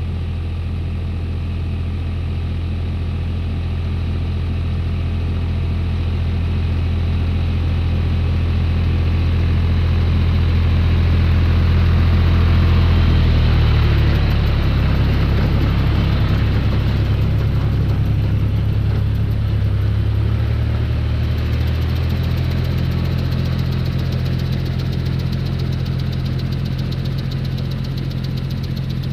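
John Deere tractor engine running steadily while the tractor spreads fertilizer. It grows louder as the tractor comes closer, passes nearest about halfway through, with a shift in the engine's tone, then fades as it drives away.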